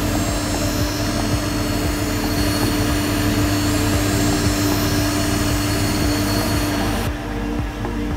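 Skate-sharpening machine running, its grinding wheel hissing against a figure skate's steel blade over a steady motor drone. The high hiss drops out about seven seconds in while the low drone goes on.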